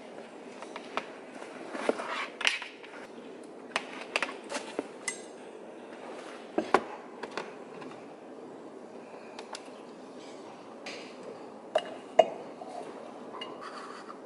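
Desk handling sounds: scattered knocks and clicks as a laptop, a computer mouse and a tumbler are set down and handled on a wooden desk. The two sharpest clicks come close together near the end.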